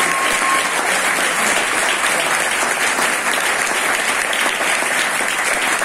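Audience applauding steadily, with the last held note of the tango music trailing off in the first moment.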